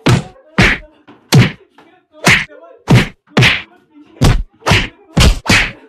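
A quick series of about ten whacks, roughly two a second: blows landing on a person, one after another.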